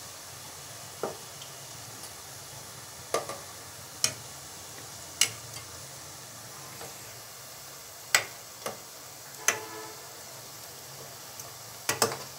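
Dough cakes deep-frying in oil in a metal pan, a steady sizzle, with a perforated metal skimmer clinking sharply against the pan about eight times as they are stirred and turned.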